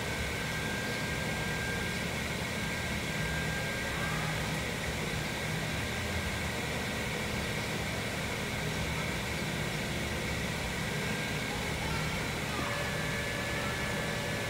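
Steady mechanical hum with a hiss over it, even in level throughout, with a low drone and a faint high whine.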